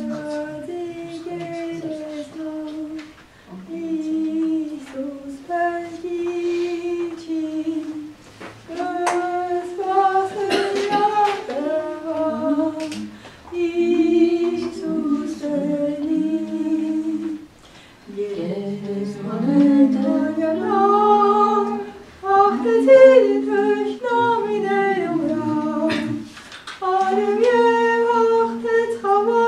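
A woman singing a worship song solo and unaccompanied, in phrases of a few seconds with short breaks for breath between them.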